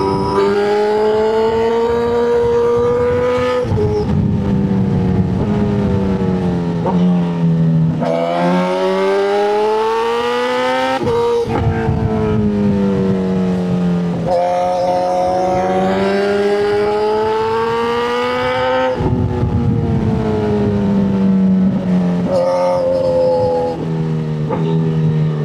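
Motorcycle engine running hard, its note rising over several seconds and easing back down several times as the throttle is held and rolled off, with a few quick throttle blips near the end.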